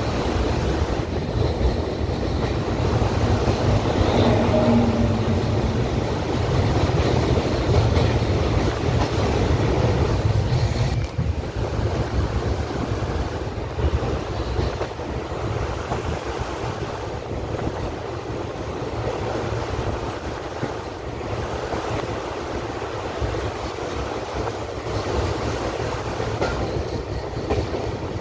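Passenger train running at speed, heard from inside a coach at the open window: a steady rumble of wheels on the rails with occasional knocks.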